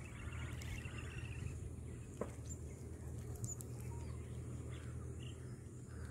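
Outdoor ambience: a steady low hum, with a bird trilling briefly in the first second or so and a single sharp click a little after two seconds.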